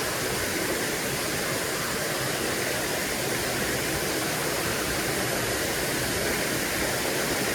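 Water rushing steadily over a spillway, a constant even roar.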